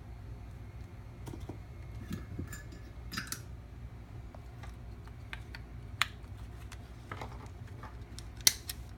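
Scattered small clicks and taps from a guitar effects pedal being handled during repair, over a steady low hum. Two sharper clicks come about six seconds in and near the end.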